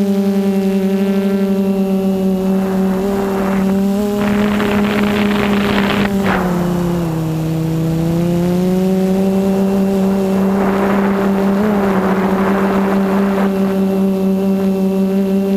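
Hoverthings Flip FPV quadcopter's T-Motor brushless motors spinning 10x4.5 HQProps props, a steady droning whine with overtones. About halfway through the pitch drops for a couple of seconds and then climbs back, and there are two spells of rushing air noise.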